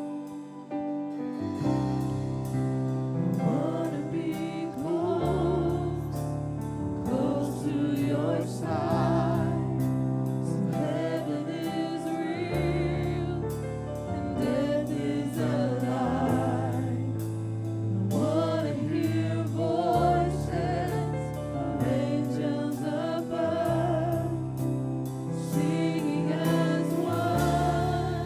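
Gospel music: a choir singing over bass, keyboard and a steady drum beat.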